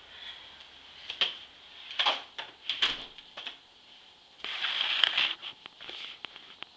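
Handling noise from a handheld camera being moved about close to the body: scattered knocks and clicks with rustling, and a longer rustle about four and a half seconds in.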